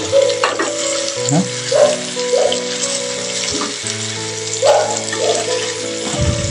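Chicken curry with onions sizzling in a pan on a gas stove as it is stirred: a steady hiss, with background music playing over it.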